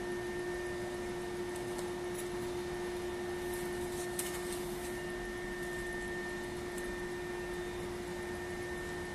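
Air-cooled electric hot knife (thermal cutter) running with a steady hum and hiss from its cooling fan as its heated blade trims EVA interlayer film off a laminated glass edge, with a few faint ticks.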